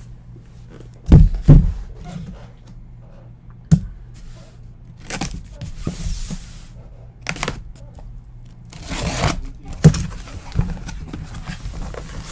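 A cardboard shipping case being handled and opened on a desk: several thumps and knocks as it is moved and set down, and two longer tearing, scraping rustles of cardboard flaps and packing, about five seconds in and again near nine seconds.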